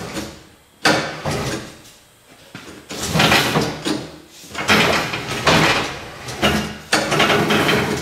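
Tire changer working a skid-steer tire bead over the steel rim with a tire iron: a sharp knock about a second in, then three runs of scraping, each about a second long, as the stiff rubber bead drags over the rim.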